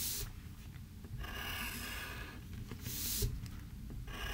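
Graphite pencil scratching across paper in a few separate drawing strokes, with the paper shuffling briefly at the start as the sheet is turned.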